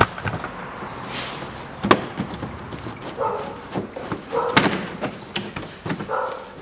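Plastic wheel-arch liner and under-tray being prised and pulled loose, giving sharp knocks and clacks of plastic and clips. A few short pitched yelps come in the second half.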